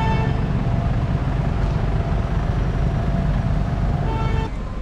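Vehicle noise: a steady low rumble, with a held pitched tone of several notes sounding briefly at the start and again about four seconds in.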